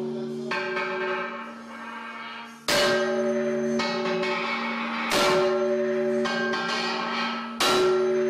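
Sledgehammers striking the blade of a large bronze ship propeller during restoration: a lighter blow, then three heavy blows about two and a half seconds apart. Each strike leaves the blade ringing on like a bell.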